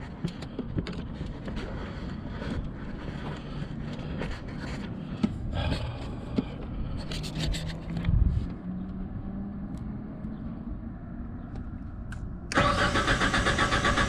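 Small clicks and taps of a test light probe working in a relay socket, then near the end a sudden loud engine cranking on its starter with a rapid pulsing beat, the boom lift's crank-no-start engine being turned over.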